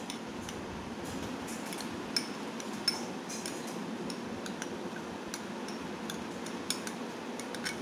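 Metal spoon scraping sauce out of a small bowl and clinking against a glass bowl of chopped vegetables: a run of light clicks and scrapes, with two louder clinks about two and three seconds in, over a steady low hum.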